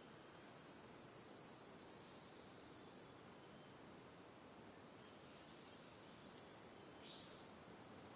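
Faint outdoor nature ambience: two high, rapidly pulsed chirping trills, each about two seconds long, the second starting about five seconds in, over a low steady hiss.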